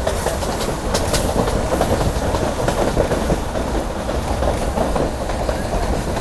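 Passenger train running along the track, heard from on board: a steady rumble with the wheels clattering over the rail joints, and a couple of sharper knocks about a second in.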